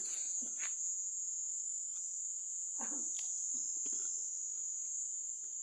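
Crickets chirring steadily at night, a continuous high-pitched drone, with a few faint short low sounds in the background.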